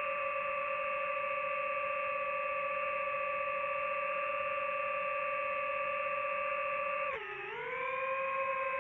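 DJI FPV drone's electric motors and propellers whining at a steady pitch. About seven seconds in, the pitch drops sharply, then climbs back up as the throttle is eased and reapplied.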